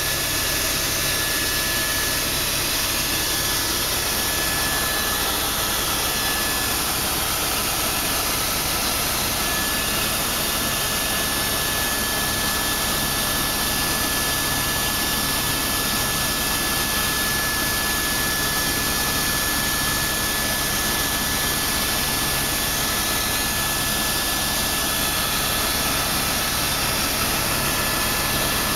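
Helicopter turbine engine and rotors running steadily in flight, heard from inside the cabin: a constant whine over a dense, even rush of engine and rotor noise.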